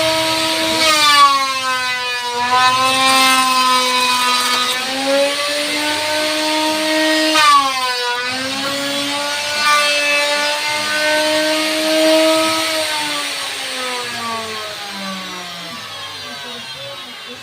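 Electric woodworking power tool running, its pitch sagging as it bites into the wood about a second in and again sharply near eight seconds. Near the end it slowly winds down and fades.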